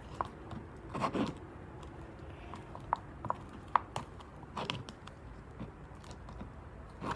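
Mixing tool stirring thick, stiffening fluffy slime in a cup, with scattered short clicks, taps and scrapes against the cup.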